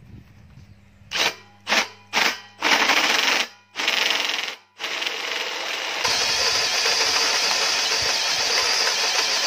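Cordless drill driving a hole saw into steel to enlarge a hole, cutting through a clamped guide plate with WD-40 as lubricant. It starts with three short trigger bursts, then two longer runs, then cuts continuously.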